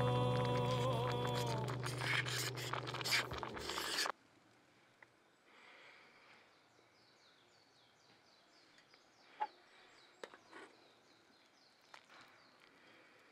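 Background music that cuts off suddenly about four seconds in, leaving faint outdoor ambience with birds chirping in quick falling notes. A few light clicks come from metal chopsticks against the cook pot.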